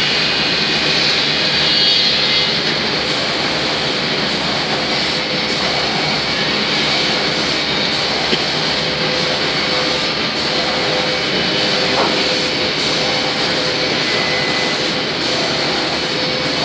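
Automatic spray-painting machine for wooden doors running: a loud, steady rush of machinery and moving air with a faint steady hum underneath.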